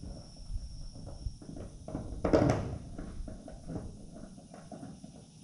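Handling noise from a GoPro camera being turned and adjusted on its wing mount's extension arm: irregular soft clicks and knocks, with one louder knock a little over two seconds in.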